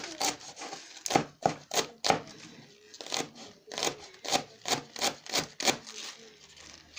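Kitchen knife slicing rolled collard leaves into fine strips on a plastic cutting board: quick, even strokes at about three a second, each ending as the blade meets the board. There is a short break about two seconds in.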